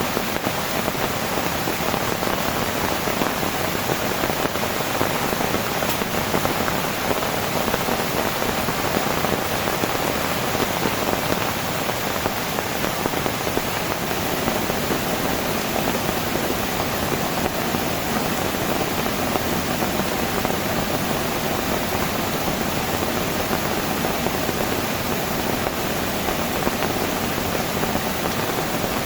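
Heavy rain falling steadily and evenly.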